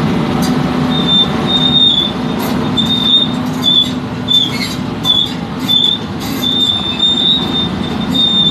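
Volvo EC210B excavator with a hydraulic hammer, its diesel engine running steadily under a high metallic squeal that keeps breaking off and starting again. Scattered sharp clicks and knocks come through.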